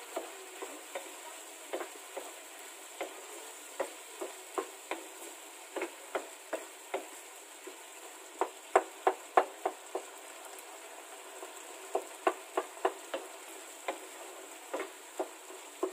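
Wooden spoon stirring a chunky tomato-and-onion sauce in a nonstick frying pan. It clacks and scrapes against the pan irregularly, over a low, steady sizzle from the simmering sauce. The clacks come thickest about halfway through and again a few seconds later.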